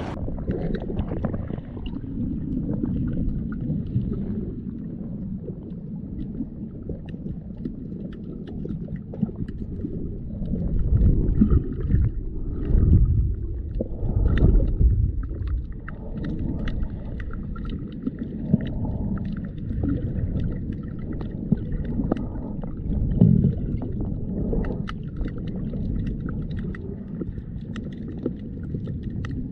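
Muffled underwater sound heard through a submerged camera: a low rumble of moving water with faint scattered crackling clicks. Louder low surges come about a dozen seconds in and again near the end.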